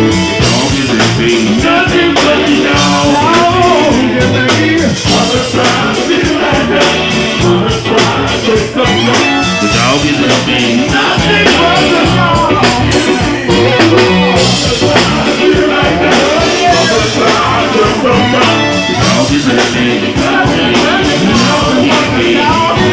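Live funk band playing loud, with electric guitar, keyboards and drums under several voices singing over a steady beat.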